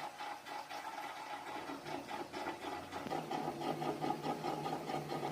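Panasonic NA-F70S7 top-load washing machine running its tub clean cycle, a steady mechanical churn with a regular pulse.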